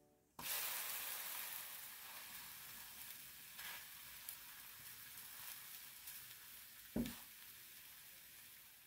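Kue ape batter sizzling as it fries in a hot pan. The sizzle starts suddenly and slowly dies down. A single short knock comes about seven seconds in.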